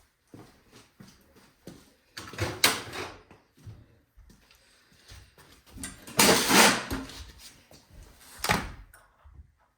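Hand tools and metal snowblower parts being handled during disassembly: small clicks and three louder scraping clunks, the longest about six seconds in.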